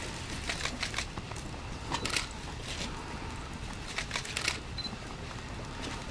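Camera shutters clicking at irregular moments, sometimes two or three in quick succession, with a couple of short high autofocus beeps.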